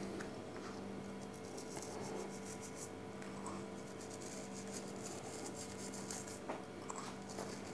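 Faint rustling and light scratching of salt-and-spice mix being sprinkled by hand over raw trout fillets in a plastic container, with a few soft taps. A steady faint hum runs underneath.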